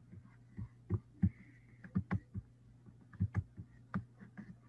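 Irregular short clicks and taps, like typing on a computer keyboard, about a dozen in all, over a steady low hum.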